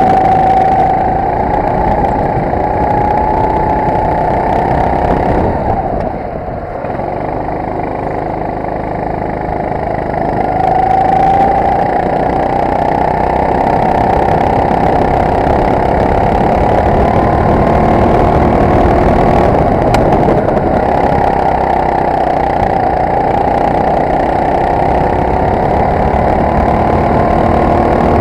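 Honda single-cylinder four-stroke kart engine at racing speed, heard from the driver's seat. Its pitch and loudness dip about six seconds in, then climb back from about ten seconds and hold at high revs.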